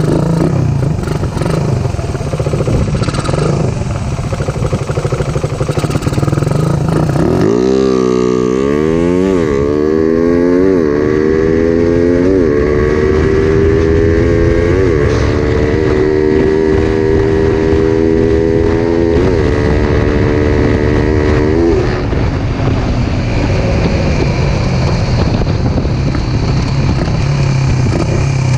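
Suzuki Raider 150's single-cylinder four-stroke engine, breathing through a Koso EVO 30 mm flat-slide carburettor, under way. About a quarter of the way in it revs up hard with a few brief dips, holds high revs steadily, then drops back about three-quarters through. The carburettor is not yet in perfect tune, and the rider finds it still misfiring a little at deep throttle.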